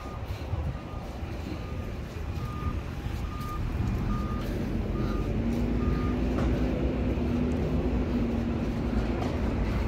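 Street traffic rumble with a short electronic beep repeating about one and a half times a second, which stops about six seconds in. From about four seconds in, a vehicle's engine hum grows louder.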